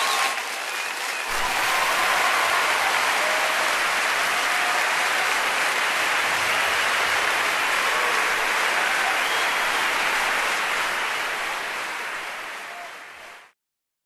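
Audience applauding: dense, steady clapping that dips briefly near the start, then fades out and stops shortly before the end.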